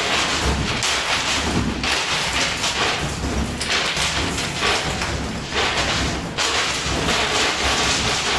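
Coin pusher machine running, with a dense, steady clatter and jingle of coins shuffling and sliding on the pusher shelf and playfield.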